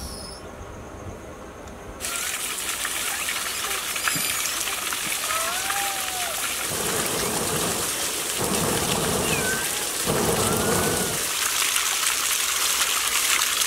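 Steady rushing hiss of water, starting abruptly about two seconds in, with a few short chirps over it.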